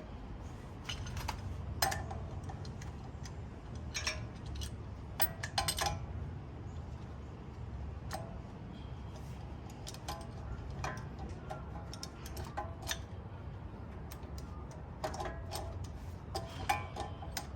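Irregular metallic clinks and taps of hand tools against a brake caliper and C-clamp as a caliper piston is pressed back into its bore, some clinks ringing briefly, over a steady low rumble.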